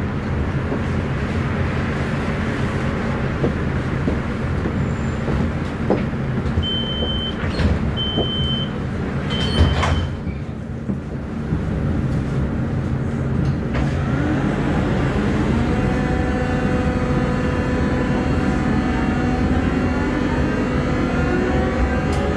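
Duewag B80D light-rail car at a stop: three short high beeps of the door warning, then knocks as the doors shut. About four seconds later a whine rises in pitch and levels off as the car pulls away over a steady rumble.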